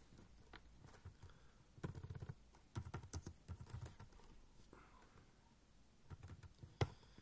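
Faint typing on a computer keyboard: quick clusters of keystrokes, with one sharper click near the end.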